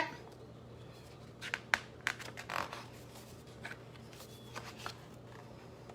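Paper handling: a picture book's page being turned, a few light clicks and a short soft swish of paper, then small faint ticks.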